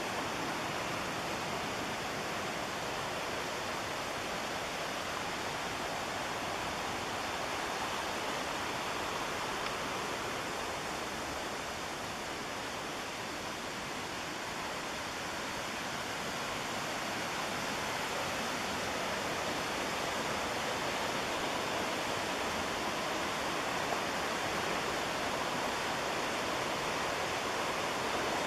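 Steady rush of fast-flowing whitewater on the McKenzie River, an even wash of water noise that dips slightly near the middle and grows a little louder toward the end.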